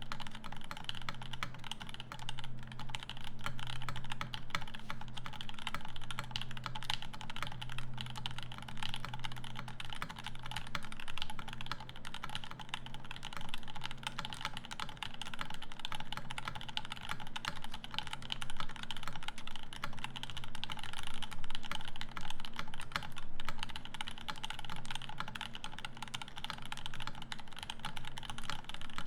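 Continuous typing on a Rama M60-A mechanical keyboard with lubed Durock Linear L7 linear switches and GMK Olivia Dark keycaps: a dense, unbroken run of key clacks.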